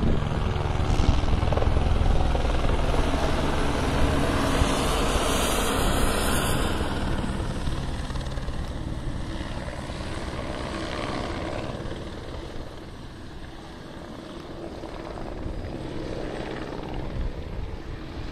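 Military Police helicopter flying low overhead, its rotor and engine loud at first, fading to a low just past halfway, then growing louder again as it circles back.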